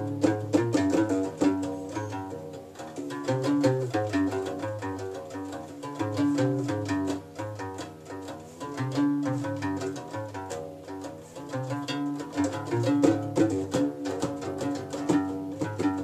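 Guembri (Moroccan sintir), a three-stringed skin-covered bass lute, played solo: a quick, rhythmic run of plucked low notes with sharp attacks, circling a repeating bass figure.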